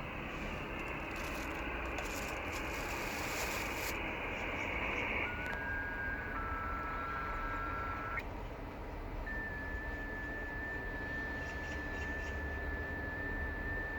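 Icom IC-7600 shortwave transceiver's receiver audio in FT8 mode: a steady hiss of band noise, then, about five seconds in, thin steady whistling tones of FT8 digital signals. Two tones sound together for a few seconds and end with a click. A single tone follows from about nine seconds in, stepping very slightly in pitch.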